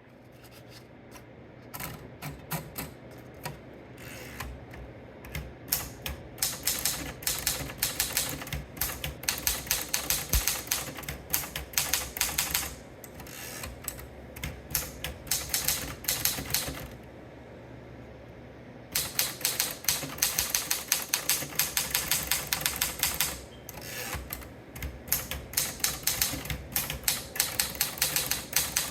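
Remington manual typewriter being typed on: fast runs of sharp key strikes, with a pause of about two seconds a little past the middle and a shorter lull later.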